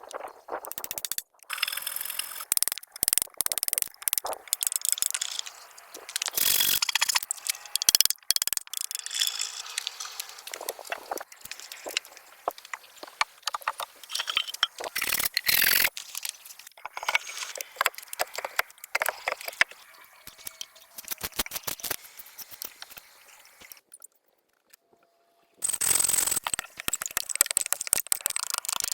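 Hands-on work with wood and other natural materials: a busy run of sharp clicks, knocks and scrapes, with a brief pause near the end.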